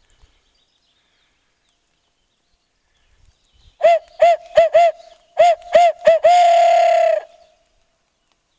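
Hunter's hand-blown game call: four short, sharp notes, a brief pause, three more, then one long drawn-out note. It is called to make a hidden gobbler answer.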